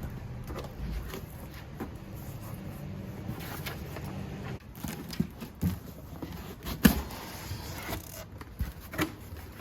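A cardboard wheel box and its packing being handled, with scattered knocks, clicks and rustles. The loudest knock comes near the end. A steady low hum runs underneath for the first half and stops abruptly about halfway through.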